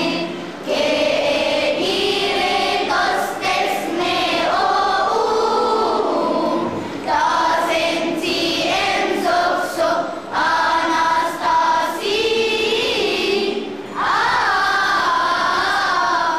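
Children's choir singing a Coptic church hymn, phrase after phrase with short breaths between.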